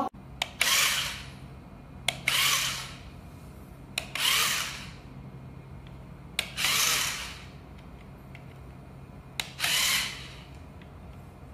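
Remote-control toy spider's small motor whirring in five short spurts, each under a second, with a small click just before each spurt, over a low steady hum.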